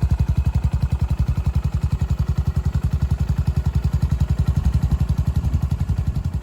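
Yamaha SR400's air-cooled single-cylinder four-stroke engine idling through an aftermarket GOODS silencer: a steady, even beat of exhaust pulses.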